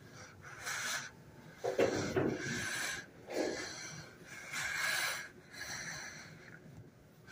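Soft breathing close to the microphone, a breathy rush about once a second.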